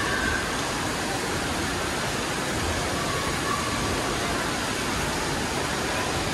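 Steady rushing noise of an indoor water park hall, from running and splashing water.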